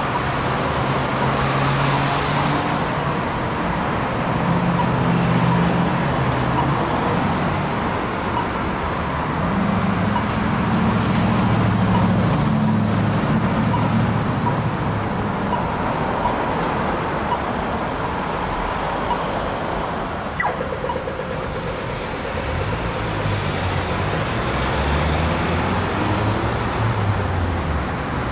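Road traffic on a busy street: a steady wash of tyre and road noise, with the engines of passing cars swelling and fading by turns.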